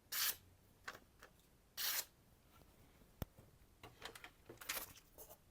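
A freshly sharpened kitchen knife making slice-test cuts. Two short cuts come near the start and about two seconds in, a sharp click follows a little after three seconds, and softer cuts come near the end.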